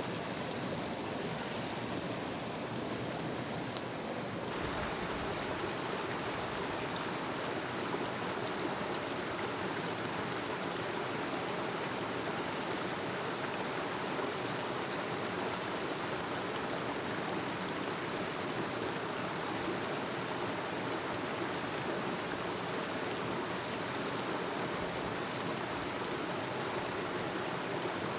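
Steady rush of a rocky mountain stream and small waterfall, a little fuller about four and a half seconds in.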